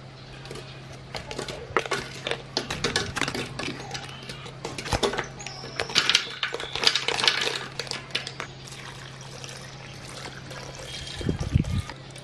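Frozen raspberries and blueberries dropping into a plastic blender jar, a long run of hard clicks and knocks as they hit the plastic and each other. Near the end milk is poured in with a short splash.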